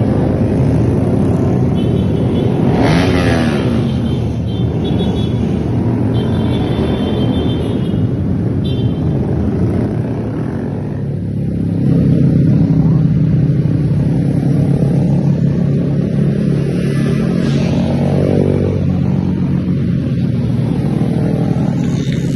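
Yamaha R15 V3's single-cylinder engine running through an aftermarket basuri exhaust, idling with quick throttle revs near the start and about three seconds in, then settling into a steady, deeper idle from about halfway through.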